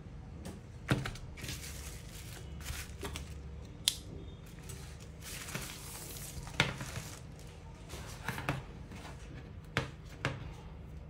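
Small hand tools working on a phone during repair: sharp clicks and taps, about six of them, with scraping and rustling in between.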